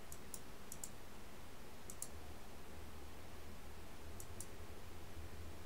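Computer mouse clicks, mostly in quick pairs, about four times, over a faint steady low hum.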